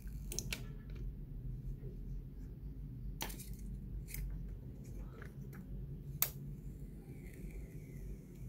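Plastic protective film being peeled off a new iPhone: crinkling with a handful of short, sharp crackles, the loudest a little after six seconds in.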